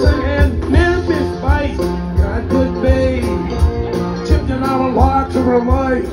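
Live band playing an upbeat country-blues instrumental passage: plucked strings over bass and a drum beat.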